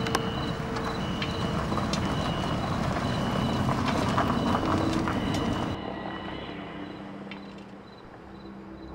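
A car driving slowly over cobblestones, its tyres rumbling and clattering with scattered sharp clicks over the engine. About two-thirds of the way through it suddenly drops to a quieter, steady low hum.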